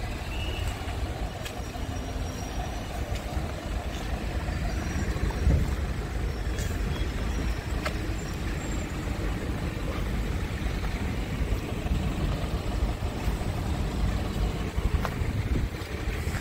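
Wind buffeting the microphone: an uneven low rumble with a stronger gust about five seconds in, and a few faint clicks.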